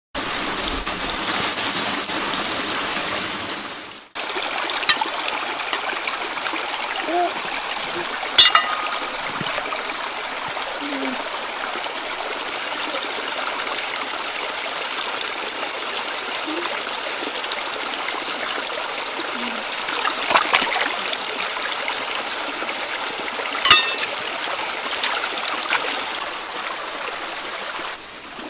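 A shallow stream running over rocks, a steady trickling rush. It cuts out briefly about four seconds in and comes back, with a few sharp clicks, loudest twice, once about eight seconds in and once near the end.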